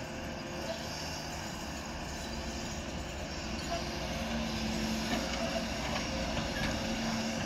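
Doosan DX140 wheeled excavator's diesel engine and hydraulics working as it digs and swings a bucket of earth over a dump truck, with a steady hum that grows stronger past the middle. A dump truck's engine runs alongside.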